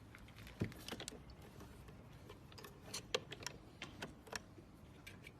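Irregular light clicks and taps of hands handling and fitting the small plastic parts of a smart deadbolt.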